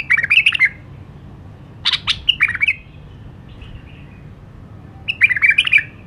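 White-eared bulbul singing three short, quick phrases of warbled notes: one at the start, one about two seconds in, and one about five seconds in, with a faint call between them.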